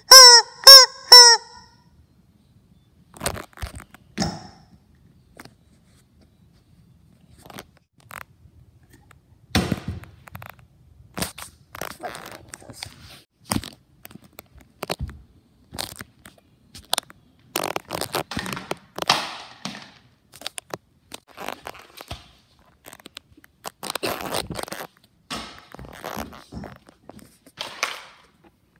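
Rubber chicken toy squeezed, giving four short, loud squawks in quick succession at the start. Scattered knocks, thumps and handling noise follow.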